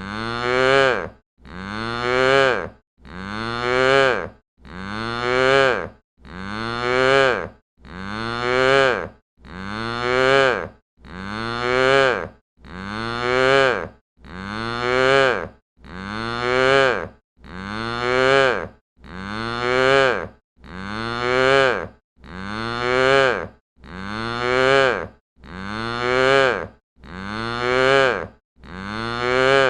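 Cow mooing, recorded dry without reverb: the same moo repeated over and over, about one every 1.7 seconds, each call rising in pitch and ending with a short silence before the next.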